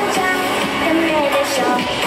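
Pop dance music with a singing voice.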